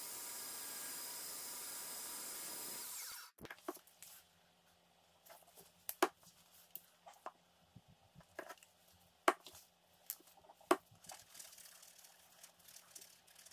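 Vertical bandsaw running with its blade cutting a thin sheet for about three seconds, then cutting off abruptly. After that, scattered light clicks and taps of plastic bottles and small parts being handled on a workbench.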